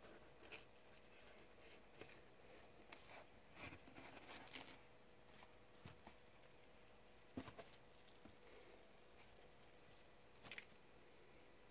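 Near silence: room tone with a faint steady hum and a few soft clicks and rustles, the most distinct about seven and a half and ten and a half seconds in.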